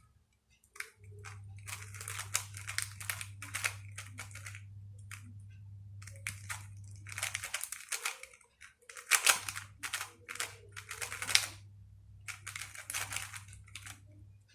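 A freshly lubed DaYan TengYun M 3x3 speed cube being turned rapidly to break it in, giving runs of quick plastic clicking and clattering. There is a short pause a little past the middle.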